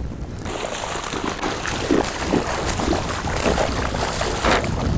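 Steady wind and water noise around a small open fishing boat.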